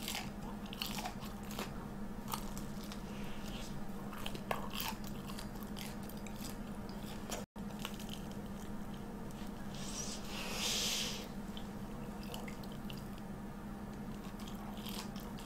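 Close-miked biting and chewing of a fried Korean corn dog in crisp batter, filled with mozzarella and cheddar: scattered small crunches and soft, wet chewing. A brief hiss about ten seconds in.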